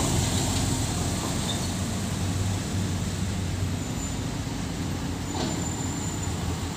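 Diesel engine of a loaded Hino Dutro sand truck running as it pulls away and fades, with other trucks' engines on the dirt road behind it.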